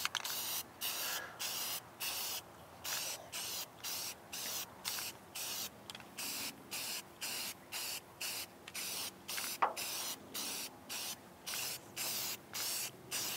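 Aerosol spray can of bare-metal primer hissing in short, even bursts, about two or three a second, as the coat goes on in quick passes. A brief high squeak about two-thirds of the way through.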